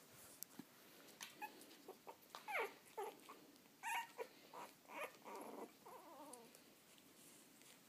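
Young puppies whimpering and squeaking: a string of short, high calls, several sliding down in pitch, bunched in the middle and fading out near the end.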